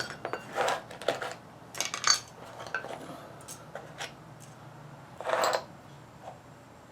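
Metal tools and winch parts being handled and set down on a workbench: scattered clinks and clatters, with a few louder handling noises.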